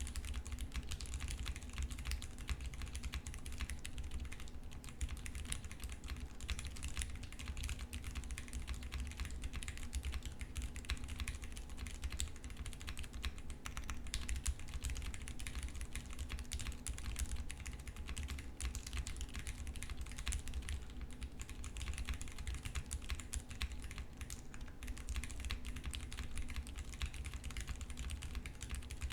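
Continuous typing on a custom 60% mechanical keyboard: lubed, tape-modded Cherry MX Brown tactile switches on an FR4 plate with GMK keycaps, in a Hex 3c case. It makes a dense, unbroken run of key clacks.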